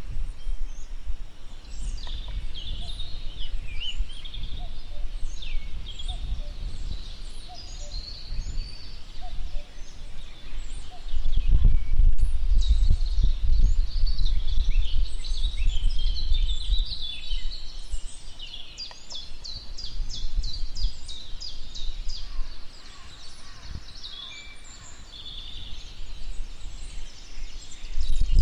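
Small birds chirping and singing in the trees, many short calls and quick trills overlapping, over a low rumble that swells loudest in the middle.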